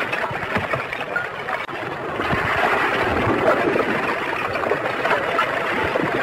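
Steady rushing rumble with scattered low knocks, from a creeping lava flow front as hot blocks of rock break off and tumble down it. It grows louder about two seconds in.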